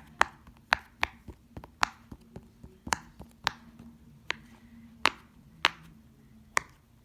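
A run of about a dozen sharp, single snapping clicks at an uneven pace of roughly two a second.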